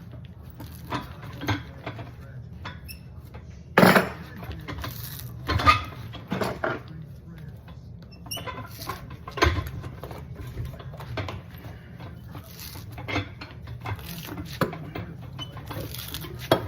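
Irregular knocks, taps and scrapes of hand work on a sandal at a shoe last, with the loudest knock about four seconds in, over a steady low hum.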